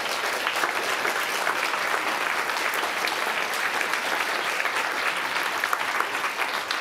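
Audience applauding: many hands clapping at once in a dense, steady clatter.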